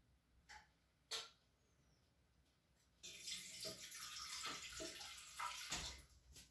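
Liquid being poured into a bread machine's metal bread pan: a steady splashing pour that starts suddenly about three seconds in and runs for about three seconds, after a couple of light knocks.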